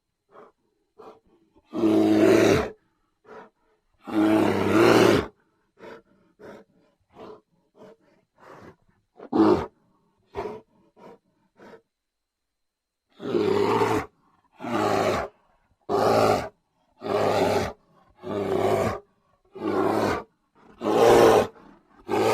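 Brown bear roaring: two long roars a couple of seconds apart, then a stretch of short, quieter grunts and huffs with one brief loud call, then a run of about eight roars at roughly one a second.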